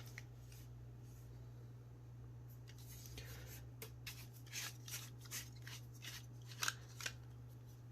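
Faint handling of a small metal flashlight being taken apart: a string of light clicks and scrapes from a few seconds in as its parts are worked loose, over a steady low hum.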